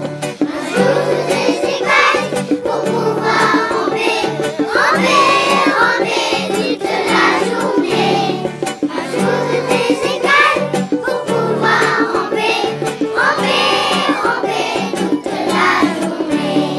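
A group of young children singing a French song together over an instrumental backing.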